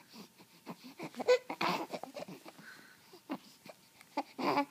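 Baby babbling and making short, scattered vocal sounds, with small clicks in between and a louder burst near the end.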